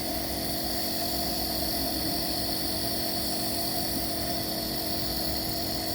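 Compressor nebulizer running with a steady, unchanging hum.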